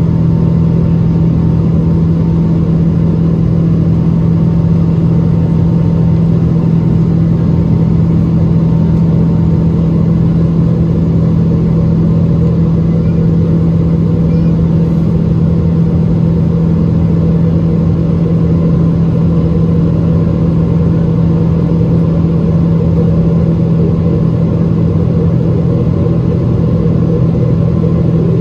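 Boeing 777-200ER jet engines at climb power, heard from inside the cabin over the wing: a loud, steady drone with a strong low hum.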